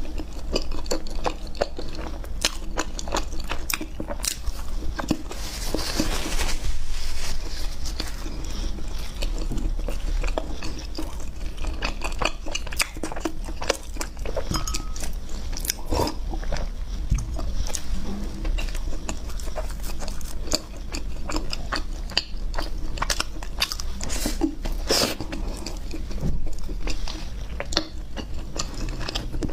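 A person biting and chewing chocolate ice cream bread, with frequent small crunches and mouth clicks.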